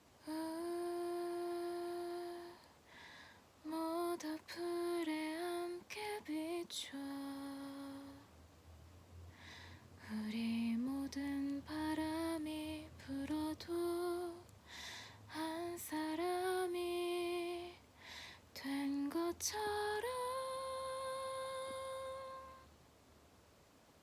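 A woman singing a slow melody a cappella, soft and close to humming, in phrases of held and gliding notes. The phrases end on one long high note that stops shortly before the end.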